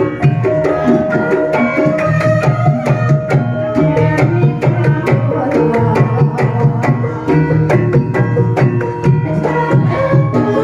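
Javanese gamelan ensemble playing: struck bronze metallophones ring out in a dense, steady rhythm over hand-drum beats.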